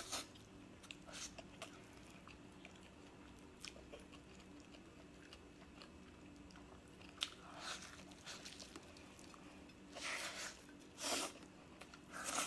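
Faint close-up eating sounds: a person biting and chewing meat with her fingers at her mouth, with scattered short mouth noises and a louder cluster of them near the end.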